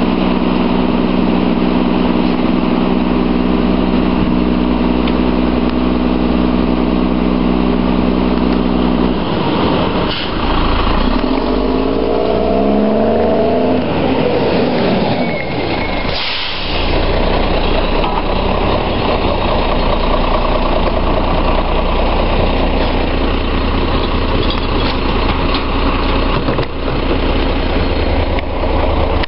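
Front-end-loader garbage truck's diesel engine running at an even pitch, then its revs rising and falling as the truck pulls away about ten seconds in, with a short air hiss a few seconds later. After that it settles back to a steady run.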